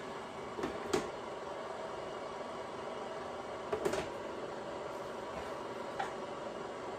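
Food dehydrator trays being stacked back onto the unit, giving a few light clacks (about a second in, around four seconds in and again near the end), over a steady hum.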